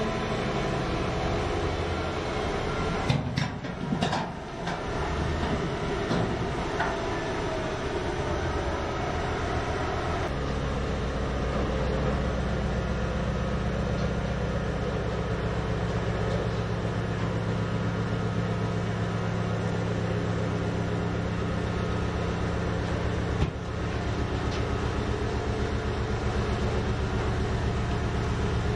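The twin 16-cylinder MTU diesel engines of a BeLAZ 75710 haul truck running while the dump body tilts up, with a few knocks about three to four seconds in. From about ten seconds in the engines settle into a steady low drone.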